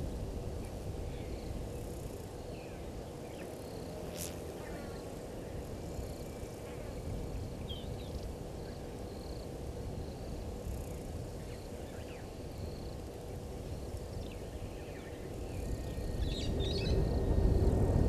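Outdoor bush ambience: a steady low rumble, with faint scattered bird chirps and short whistles. A quick rising call comes about four seconds in, and the rumble swells near the end under a cluster of chirps.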